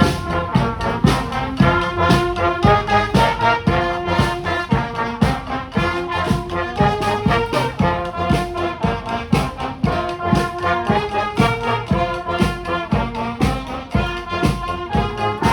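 Brass street band playing a tune together, horns sounding chords over a steady drum beat.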